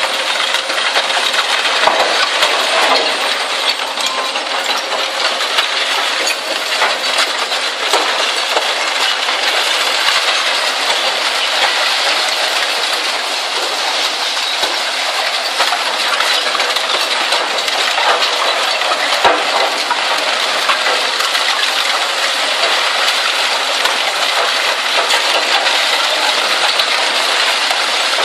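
Zato Blue Devil twin-shaft shear shredder tearing scrap steel, with a continuous loud metallic clatter and clinking as the shredded pieces pour out onto the pile, and a few heavier knocks.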